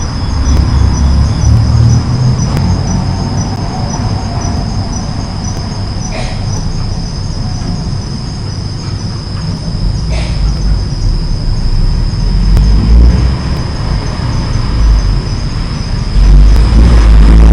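Insects trill steadily and high over the low rumble of road traffic, which swells as vehicles pass near the end. A couple of brief, faint sharp sounds stand out about six and ten seconds in.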